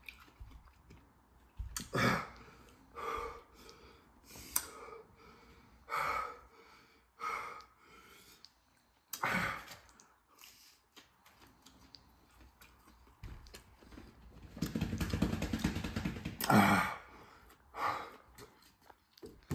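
A person gasping and breathing hard through an open mouth against the burn of a super-hot Reaper-pepper chicken tender: a string of short, separate gasps and sharp exhales, with a longer blowing exhale about three quarters of the way through.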